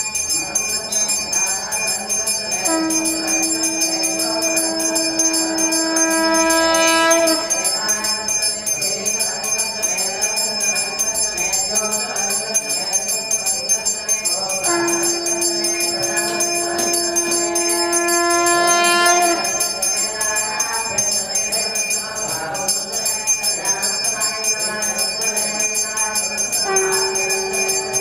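Conch shell (shankha) blown in long held blasts, each lasting four to five seconds and bending upward in pitch as it ends, the third starting near the end on a slightly higher note. A hand bell rings steadily throughout.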